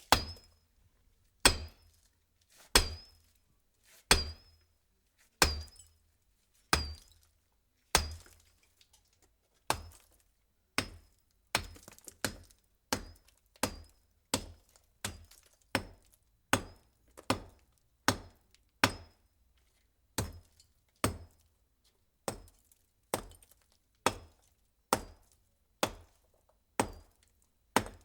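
A series of sharp knocks or strikes at a steady pace, each with a short high ring after it. After about ten seconds they come quicker, nearly twice as fast, and a little softer.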